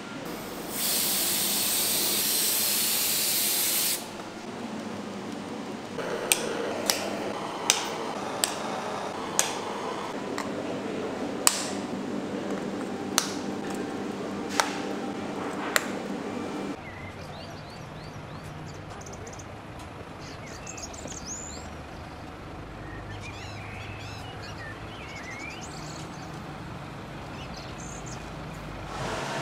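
A spray gun hisses steadily for about three seconds, coating chocolate hearts in copper-gold colour. This is followed by about nine sharp clicks, spaced a second or so apart, as hard pieces are set down on a tabletop, and then a quieter stretch with faint high chirps.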